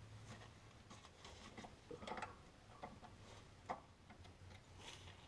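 Faint, irregular metallic clicks and ticks of hand tools at work as the driveshaft is being unbolted, over a low hum.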